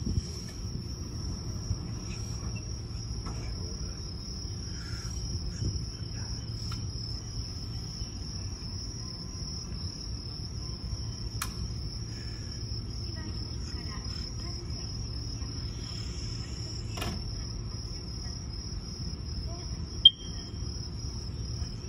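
Crickets trilling: one steady, unbroken high-pitched trill over a low steady hum from the electric train standing at the platform. A single short, sharp beep sounds near the end.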